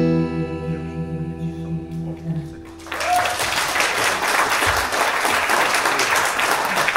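A man's voice holds the last sung note over a ringing acoustic guitar chord, which fades out about two and a half seconds in; then audience applause starts and keeps going.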